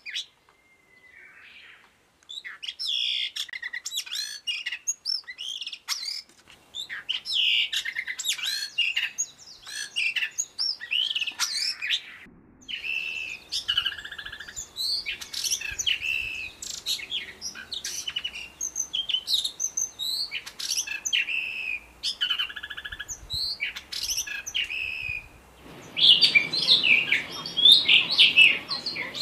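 Blue rock thrush singing: a string of short, clear, warbled whistling phrases, one after another with brief pauses. The song starts about two seconds in and is loudest near the end.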